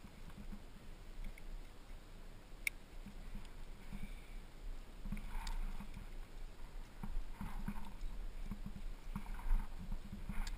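A rock climber's movements on a granite slab: irregular scuffs and soft knocks of hands, shoes and gear against the rock, with one sharp click about a quarter of the way in.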